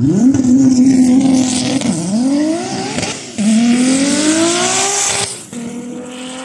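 Drag-racing cars accelerating hard down the strip: engine pitch climbs, drops at a gear change about two seconds in and climbs again. The sound changes abruptly twice to another car's run, ending on a steadier, quieter engine note.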